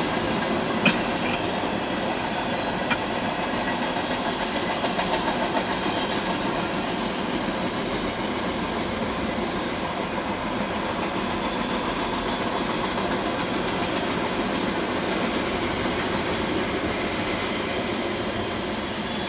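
Freight cars of a CSX mixed freight train rolling past, a steady rumble of wheels on rail with two sharp clicks about one and three seconds in.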